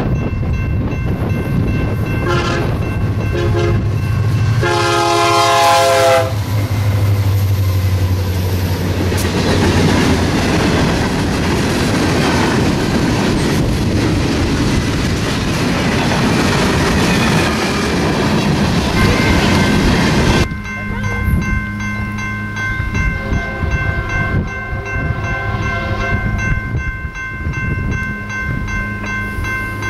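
Diesel freight train sounding its horn a few seconds in, then passing close with the engine's low drone and its tank cars and hoppers rolling by, wheels clacking on the rail joints. About two-thirds through, the sound cuts to a quieter, distant approaching train with steady high tones over a low rumble, and a horn starts near the end.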